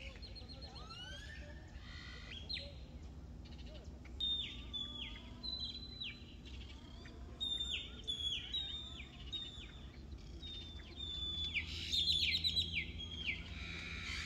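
Birds calling: a long run of short, high notes, each dropping sharply in pitch, repeated about twice a second. The calls start a few seconds in and crowd together loudest near the end, over a low steady background rumble.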